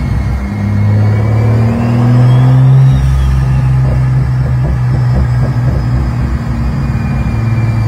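Mk4 Toyota Supra's 2JZ straight-six running hard on a chassis dyno at a fairly steady engine speed, with a high whine that rises and falls about three seconds in.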